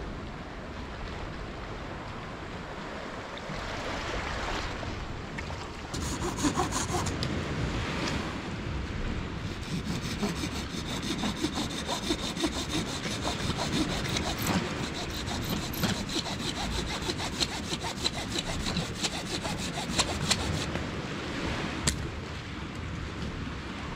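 Wood being hand-sawn: a long run of quick rasping strokes that starts about six seconds in and stops a few seconds before the end.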